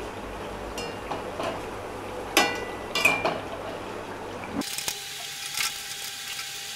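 Bread pieces sizzling in hot oil in a steel kadai while a wire-mesh skimmer scoops them out, with two ringing metal clinks of skimmer against pan about halfway through. The sizzle cuts off suddenly about two-thirds of the way in, leaving only a few faint clinks.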